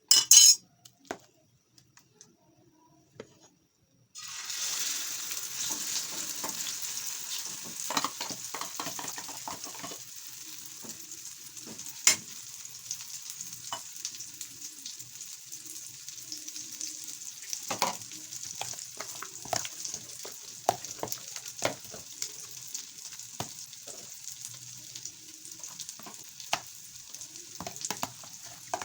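Chips-and-egg mixture frying in hot oil in a pan: a steady sizzle that starts suddenly about four seconds in, with scattered clicks and knocks of a utensil against the pan throughout. A short loud clatter comes right at the start, before the sizzling.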